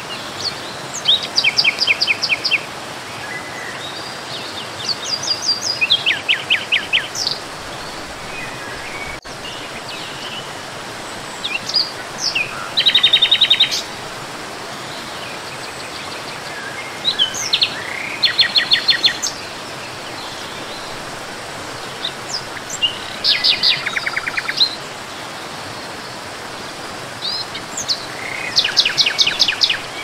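A songbird sings six short, fast trilled phrases, one every four to five seconds, each a rapid run of high notes that steps down in pitch partway through. Underneath is a steady rush of falling water.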